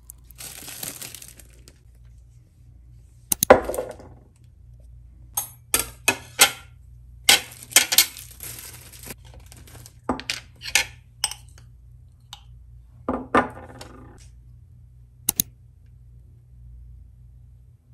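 Kitchen handling sounds while making a chocolate-spread sandwich: a string of sharp clinks and knocks of a spoon, a glass jar and a plate on a stone countertop, with short rustles of a plastic bread bag.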